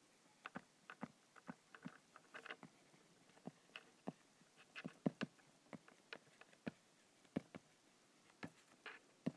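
Faint, irregular taps of a stylus on an iPad's glass screen during handwriting, a few short clicks a second.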